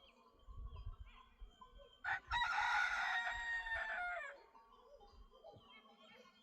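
A rooster crows once: a loud call of about two seconds that drops in pitch at the end.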